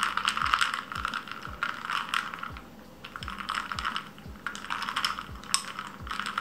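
Ice cubes clinking and rattling against a drinking glass of iced coffee with milk as it is stirred with a bamboo straw, in quick irregular runs of clicks with a short lull partway through.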